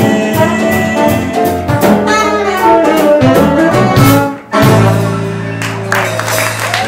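Live jazz quintet of saxophone, trombone, piano, upright bass and drums playing the closing bars of a swing tune after the last sung line. The band stops briefly about four and a half seconds in, then holds one long final chord.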